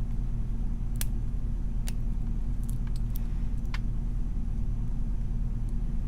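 A steady low hum with about half a dozen faint, scattered clicks of a lock pick working the pins of a brass padlock.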